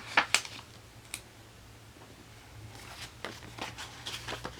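Sticker sheet and planner paper being handled as header stickers are peeled off and pressed onto the page: a few sharp ticks in the first second or so, then a run of light crackly clicks and rustles from about halfway in.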